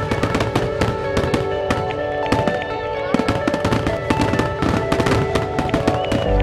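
Aerial fireworks bursting and crackling in quick, irregular bangs, with music playing over them.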